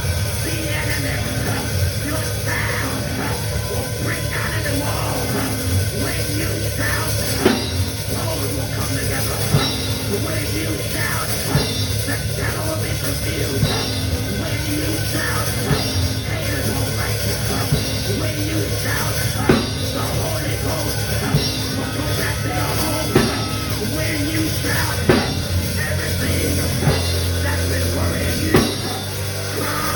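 Live church band with drum kit and a steady low bass playing an up-tempo praise break, with loud accents about every two seconds.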